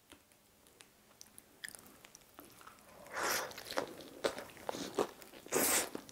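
Biting into and chewing a slice of pizza, the crust crunching in several loud bursts starting about three seconds in.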